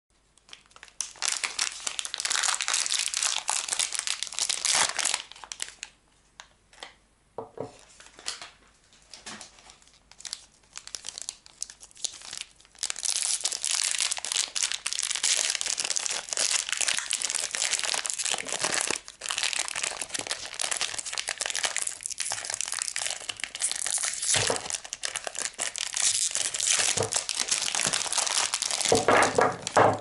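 Printed paper wrappers being crinkled and torn off bars of soap by hand: long spells of dense crackling, with a quieter stretch of a few light rustles and clicks in between. Near the end there are a few knocks as the solid soap bars are set down on the wooden table.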